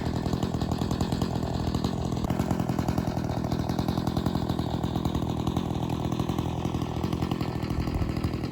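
Gasoline two-stroke chainsaw running steadily at an even pitch.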